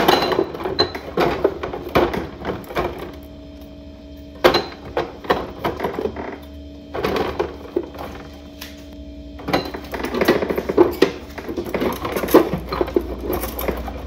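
Bottles clinking and knocking against each other and the shelf as they are set into a refrigerator door shelf, in irregular bursts with short pauses, over a faint steady hum.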